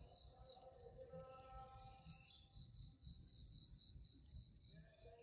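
Insects chirping in a fast, even, high-pitched pulsing trill, with soft background music in the first half.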